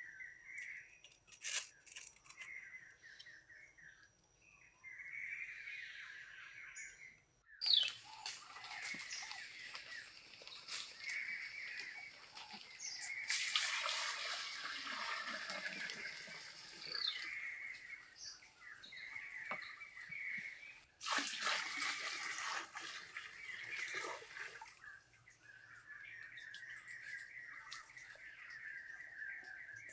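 Water poured from a pot splashing and running, in two spells about halfway through and again a few seconds later, over birds chirping throughout.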